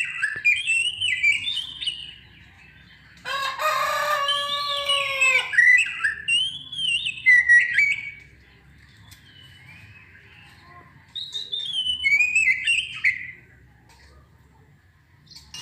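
Oriental magpie-robin (kacer) singing bursts of quick, varied whistled phrases, with a long crowing call of about two seconds starting about three seconds in, and quieter pauses between the bursts.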